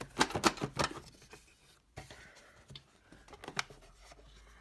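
Plastic air-box parts clicking and knocking as they are wiggled and pulled apart by hand: a quick run of clicks in the first second, then a few scattered taps.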